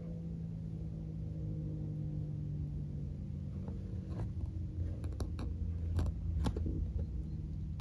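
ASC T-128 mechanical rotating outdoor warning siren winding down, its tone sinking slowly over a low rumble. A few sharp clicks come about halfway through.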